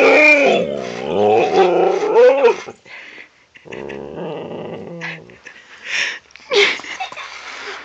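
A husky making drawn-out growling, talking vocalizations. A long call bends up and down in pitch at the start, a lower rumbling growl comes in the middle, and two short yips follow near the end.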